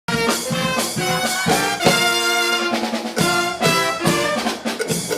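A charanga brass band playing, with trumpets and trombones sounding held chords over drums.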